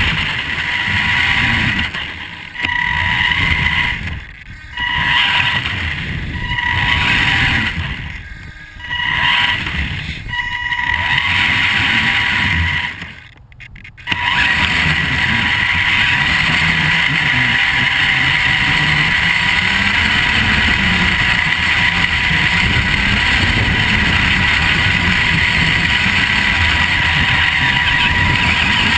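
Vaterra Twin Hammers RC truck's electric motor and drivetrain whining over the rumble of its tyres, heard from a camera mounted on the truck. The whine cuts out briefly several times in the first half as the throttle is let off, then runs steadily.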